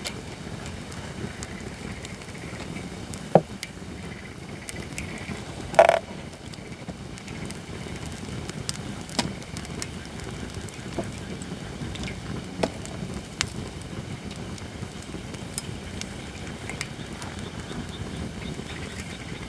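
Holly firewood burning in a campfire, crackling steadily with scattered pops. There is a sharp pop about three seconds in and a louder crackling burst about six seconds in.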